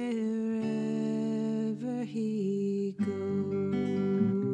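Music: a slow folk-song tune on acoustic guitar, with held melody notes and a new chord struck about three seconds in.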